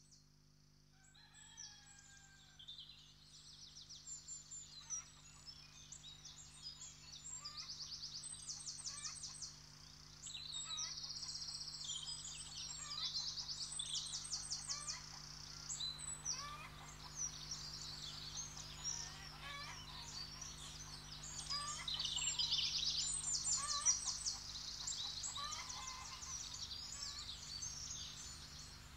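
A dense chorus of songbirds, with many high, rapid trills and chirps overlapping. It starts about a second in and grows louder, over a faint steady low hum.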